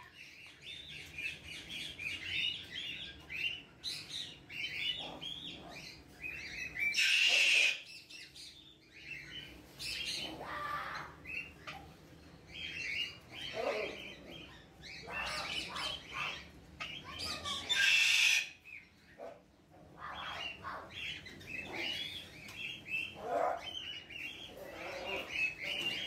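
Aviary birds calling: a steady stream of short, high chirps from many birds, cut twice by a loud, harsh parrot squawk, about seven seconds in and again about eighteen seconds in.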